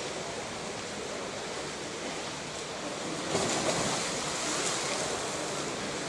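Pool water splashing and churning as swimmers dive and kick at the surface of an indoor pool, as a steady wash that grows louder and brighter about three seconds in.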